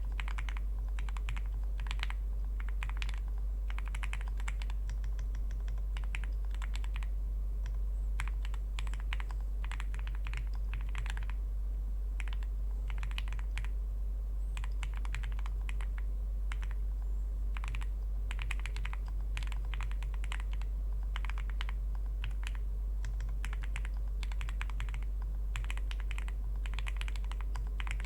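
Typing on an Owlab Spring ergonomic mechanical keyboard with factory-lubed Gateron Oil King linear switches, GMK keycaps and an aluminium plate: a steady run of keystroke clacks at an uneven typing rhythm, with brief pauses. A constant low hum runs underneath.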